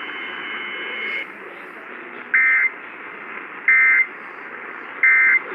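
Emergency Alert System end-of-message data bursts: three short, harsh two-tone digital buzzes about 1.3 seconds apart, sent to mark the end of a tornado warning. They come over AM radio hiss, and a steady high whistle sounds through the hiss for about the first second.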